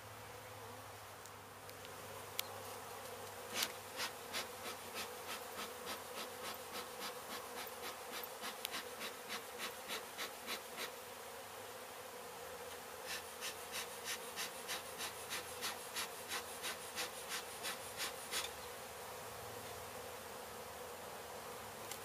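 Honey bees from a colony opened up during a cut-out, buzzing as a steady hum. Over the hum runs a series of regular clicks, about three a second, from about four to eleven seconds in and again from about thirteen to eighteen seconds in.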